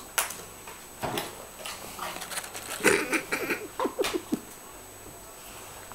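A dog crunching potato chips, with sharp crunching clicks scattered through and a busier run of them in the middle, mixed with a few short pitched sounds.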